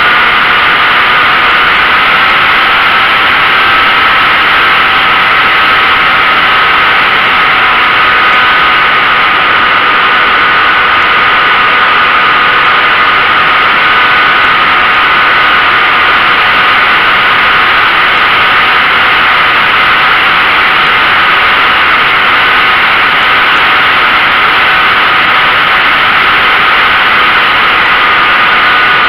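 RC model airplane's motor and propeller running at a steady speed, heard from a camera mounted on the plane: a steady high whine over loud rushing air noise, with no change in pitch through the flight.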